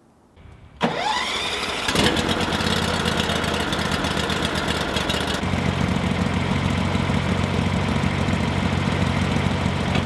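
Gasoline engine of a Norwood LumberPro portable sawmill starting about a second in, catching and running steadily. About halfway through, the high hiss drops away and a steadier, lower engine note remains.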